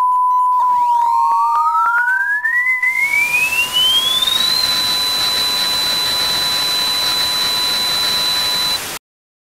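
Electronic test-tone sound effect: a steady pure beep near 1 kHz, joined by a second tone that slides steadily upward over about four seconds and then holds high, over a growing static hiss. Everything cuts off suddenly near the end.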